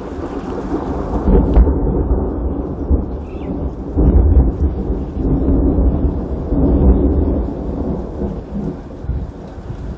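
Thunderstorm: deep rolling thunder over the steady hiss of rain, swelling in three long rumbles and easing off toward the end.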